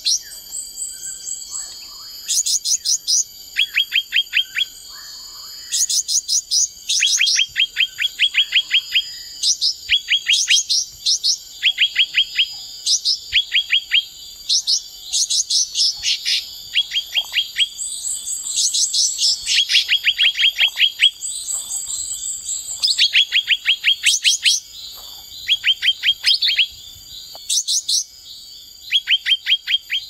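Javan leafbird singing: repeated quick chattering trills of about ten sharp notes each, with thin high whistles between them, over a steady high tone.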